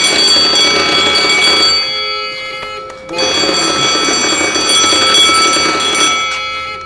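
Electric fire alarm bell ringing continuously, set off by the automatic smoke detector sensing smoke. The ringing dips and swells, dropping about two seconds in and coming back just after three seconds, then fading again near the end.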